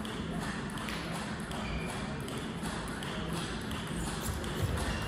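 Table tennis ball being hit back and forth in a rally: a series of light clicks of the ball on the bats and the table.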